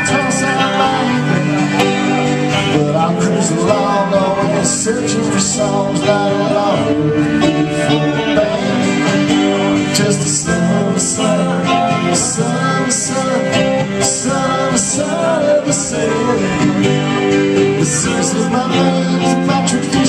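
Live duo playing a country-style song on a strummed acoustic guitar and an electric guitar, with a man singing through a microphone.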